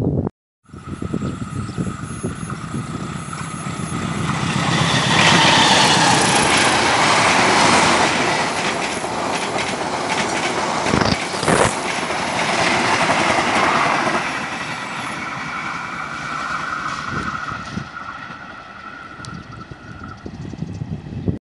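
Kaligung passenger train, a diesel-locomotive-hauled rake of coaches, passing close at speed: the rumble builds over the first few seconds, stays loud while the train goes by with the wheels clattering over the rails, then fades away near the end. A thin steady whine runs over most of the pass.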